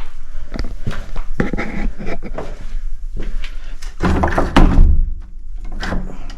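A door being tried: pushed and rattled with a run of knocks and clunks, and heavier thuds about four seconds in, as it fails to open.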